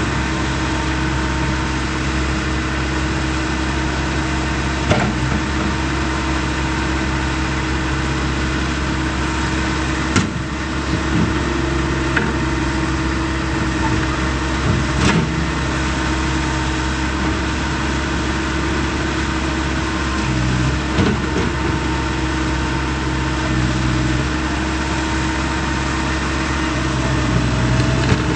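Bobcat T190 skid-steer loader's Kubota turbo-diesel engine running steadily at idle. A few sharp clicks or knocks are heard over it.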